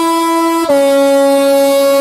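Multi-note train horn blowing a sustained chord. The chord changes to a different set of notes about two-thirds of a second in.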